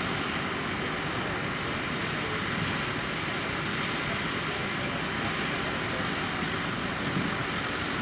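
Massey Ferguson tractor's diesel engine running steadily while it pulls a reversible plough through stubble.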